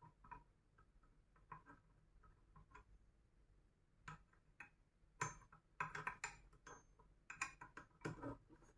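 Faint, irregular clicks and taps of a toothed gear being fitted back by hand onto the powder-feed mechanism of a cold spark machine, sparse at first and coming thicker in the second half.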